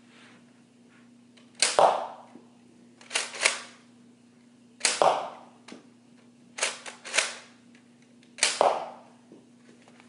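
Nerf foam-dart crossbow being fired: about five sharp snaps, one every second and a half or so, some coming as quick doubles.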